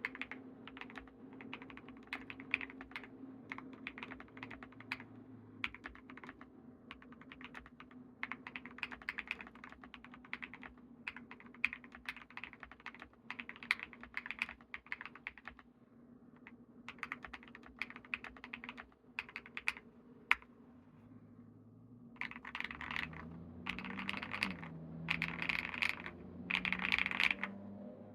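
Typing on a Monsgeek M1W mechanical keyboard with lubed BSUN Aniya linear switches and dye-sub PBT keycaps on a flex-cut PCB, a deep thocky keystroke sound. The typing comes in bursts with short pauses about halfway through, growing denser and louder near the end.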